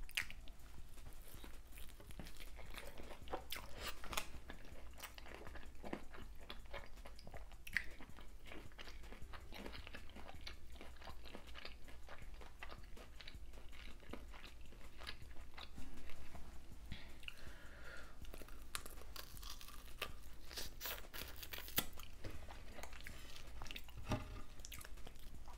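A person biting and chewing a fried hot Cheetos-crusted king crab leg, with irregular crisp crunches of the coating throughout. The crunches come thicker and louder about three-quarters of the way through.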